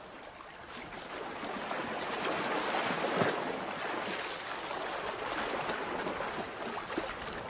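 Rushing water sound effect like waves or a stream, swelling up over the first few seconds, with a brief louder stroke about three seconds in, then slowly fading away.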